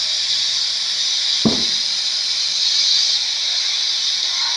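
Steady high-pitched hiss of unknown origin, the strange noise being recorded, with one short, dull thump about a second and a half in.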